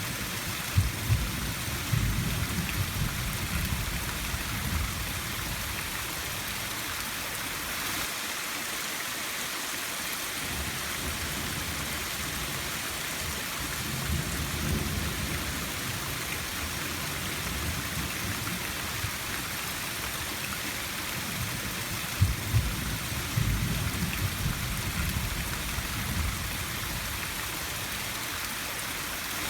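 Steady rain falling hard, with a continuous hiss. Thunder rumbles low three times: near the start, about halfway through, and again a few seconds before the end.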